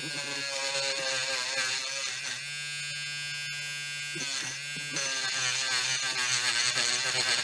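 Small electric rotary grinder with a wire brush running, a steady high whine whose pitch wavers and sags in stretches as the brush is pressed against a metal door-lock part to scrub off oxidation.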